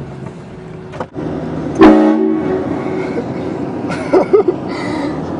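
Train horn giving one short, loud blast about two seconds in: a chord of several tones sounding together. Two short loud sounds follow about two seconds later, over a steady background hum.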